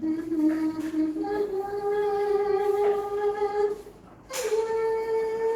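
A woman singing long held notes: the first steps up in pitch about a second in and is held for a few seconds, and after a short break a second, higher note is held.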